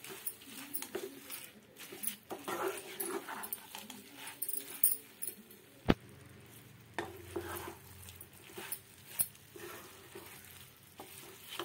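Rice being stirred and scraped with a black spatula in a non-stick pan, frying in oil with a light sizzle. A single sharp knock about six seconds in is the loudest sound.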